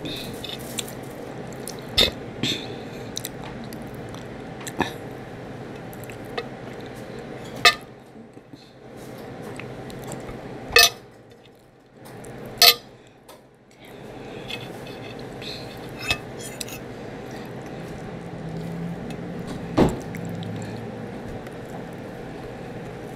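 Eating sounds: a metal fork clinks sharply against a plate several times, a few seconds apart, while rib meat is pulled apart by hand and chewed, over a steady background hum.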